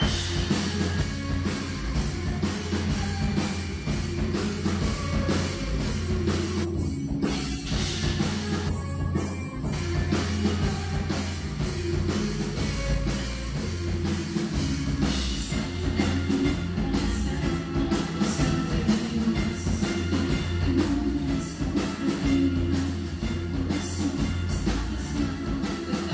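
A rock band playing live, with electric guitar and drum kit over a heavy, steady low end. The bright top of the sound drops away for a moment twice, about seven and nine seconds in.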